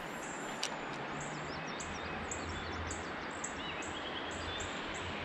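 Outdoor river ambience: a steady background hiss with a bird's short, high chirps repeating about three times a second, and a faint low hum.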